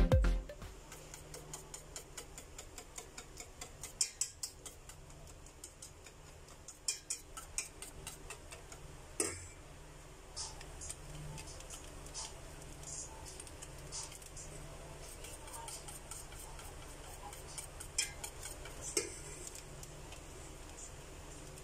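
Wire balloon whisk stirring chocolate pancake batter in a stainless steel pot, the wires clicking against the metal at about four ticks a second, then more sparsely, with a few louder knocks.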